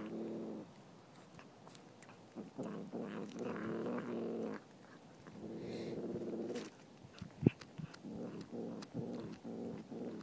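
Tabby cat eating a rat, crunching through it with sharp cracks, the loudest about seven and a half seconds in. Low rumbling growls from the cat come in four stretches of a second or two between the crunches.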